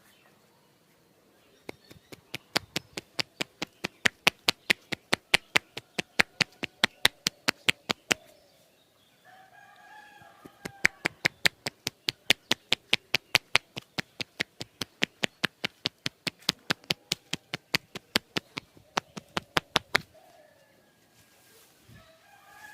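Quick, even percussive tapping of hands on the body during a massage, about four strikes a second, with a short pause partway through. Chickens clucking and calling in the background.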